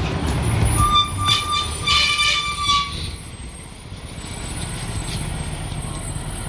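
A truck's engine running with a low rumble, and two short horn toots, about one and two seconds in.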